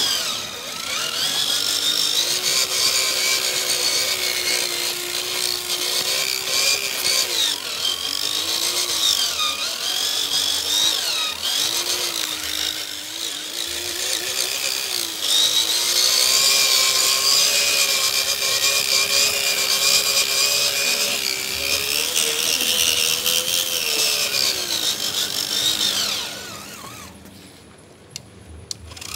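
Electric motors and gear drives of RC scale crawler trucks whining as they drive, the pitch rising and falling with the throttle; the whine dies away near the end.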